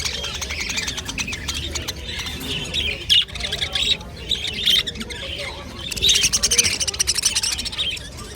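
A flock of small caged birds chirping and squawking all at once, a dense unbroken chatter of high calls and rapid trills.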